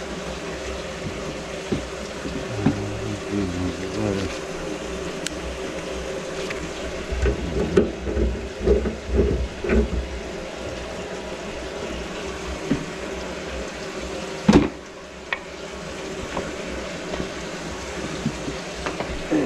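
Water running into a kitchen sink and down its drain, with a few knocks and clunks in the middle and a sharp knock about fourteen seconds in.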